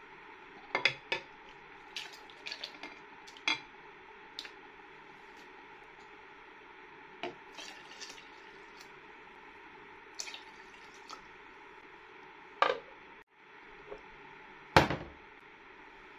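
Kitchen utensil working in a cooking pot: scattered light clinks and knocks of stirring, with a heavier knock near the end.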